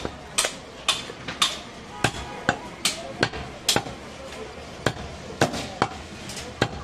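A butcher's cleaver chopping through goat meat and bone onto a thick wooden chopping block, sharp chops about two a second in an uneven rhythm.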